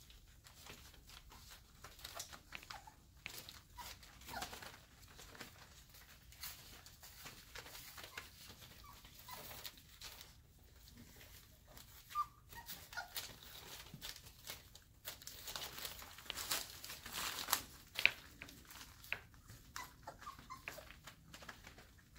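Airedale Terrier puppies, about five weeks old, play-fighting: scuffling and scratching of paws on a fabric blanket, with short high whimpers and squeaks now and then. The scuffling is busiest a little past the middle.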